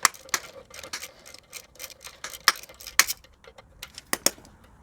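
Irregular metallic clicking of a socket ratchet working a torque converter bolt, with a few sharper metal clinks around the middle and near the end.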